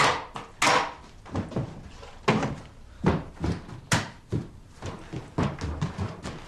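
A series of irregular knocks and thumps, a dozen or so, like things being banged about or doors and cupboards shut. The loudest come right at the start, just after half a second, and again at about two, three and four seconds in.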